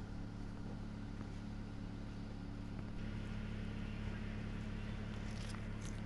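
Steady low motor hum running evenly, with a few faint ticks near the end.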